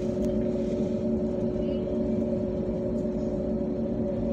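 Jet engines of an Airbus A320-family airliner running steadily while the plane taxis, heard inside the cabin as an even hum with a few held tones and no build-up of thrust.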